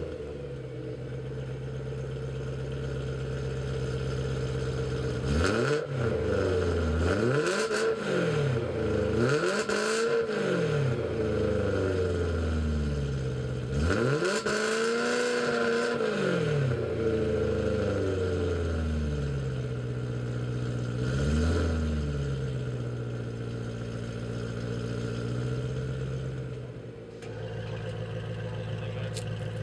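BMW E9X M3's 4.0-litre V8 through an Innotech Performance Exhaust (IPE) F1 full system with its valve closed, idling after start-up and revved about five times, each rev rising and falling back to idle, one of them held longer. Near the end the idle note changes after a brief dip in level.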